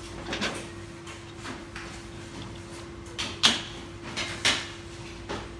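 Small parts being handled and set down at an assembly workbench: a few short knocks and rustles, the sharpest about three and a half seconds in, followed by two more in quick succession. A steady low hum runs underneath.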